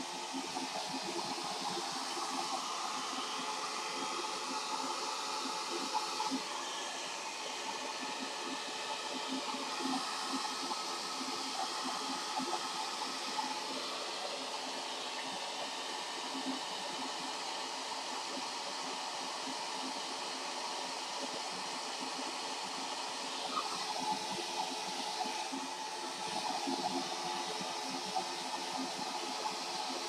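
Handheld hair dryer running steadily as hair is dried, its sound changing in character a few times as it is moved about.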